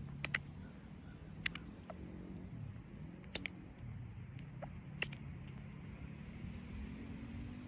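Eastern chipmunk cracking sunflower seeds: a handful of sharp, irregularly spaced cracks over a low steady hum.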